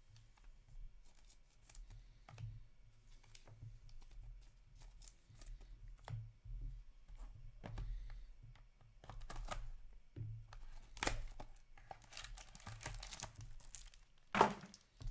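Trading-card packaging being handled and opened: scattered light clicks and taps, then a plastic wrapper crinkling and tearing from about eleven seconds in, with one short, louder thump near the end.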